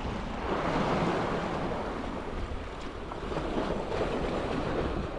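Small sea waves lapping and splashing close by, swelling and easing every second or two, with a low wind rumble on the microphone.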